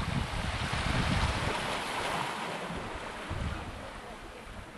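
Sea surf washing on the shore, swelling to its loudest about a second in and then fading, with wind buffeting the microphone.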